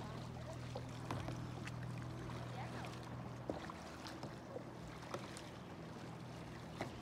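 Kayak paddling on calm water: irregular small splashes and drips from the paddle blades, over a steady low hum.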